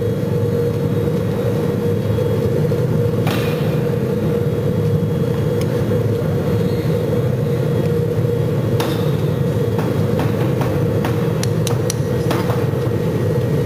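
Workshop machinery running steadily: a constant hum and rumble with a steady mid-pitched tone, and a few light knocks now and then.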